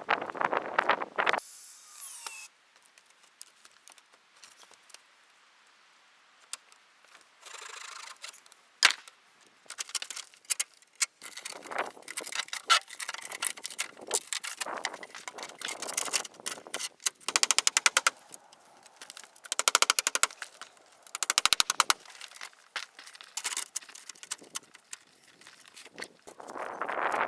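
Sped-up sounds of tool work on wood: rapid trains of sharp knocks and clicks in short bursts, with a near-silent stretch a few seconds in.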